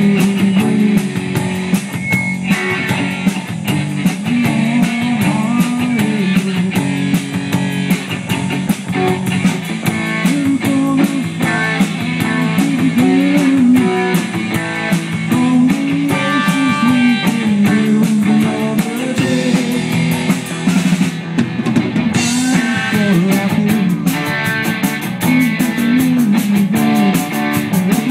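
Live amplified rock band playing: electric guitar, electric bass and drum kit with cymbals, loud and steady.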